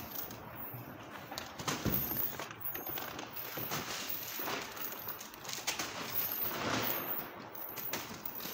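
Packaged food rustling and knocking together as someone rummages through a wheelie bin, in irregular bursts of crinkling and clatter.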